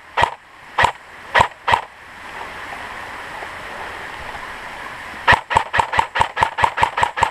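Airsoft electric rifle firing: four single shots in the first two seconds, then after a pause a rapid string of about a dozen shots, roughly seven a second, near the end.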